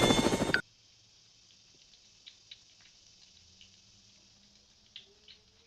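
Loud rhythmic helicopter rotor noise cuts off suddenly about half a second in. Near quiet follows, with a few faint light clicks and taps spread over the next few seconds.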